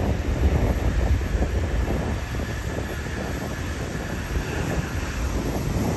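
Airliner jet engines running: a steady low rumble with a faint high whine.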